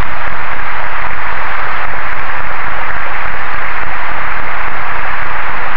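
Steady loud hiss of static, the noise of an old tape recording filling the pause, with no change throughout.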